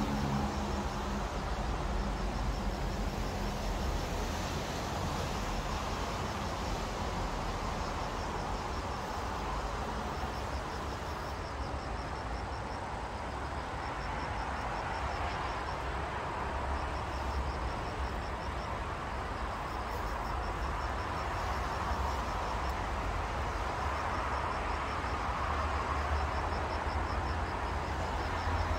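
Steady hum of distant road traffic with a low rumble underneath. High above it, an insect's short pulsed trills repeat every few seconds.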